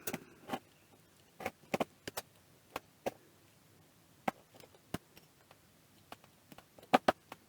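Irregular light clicks and taps of small plastic and metal parts being handled as a cable connector is worked into a display housing, with a louder pair of knocks near the end.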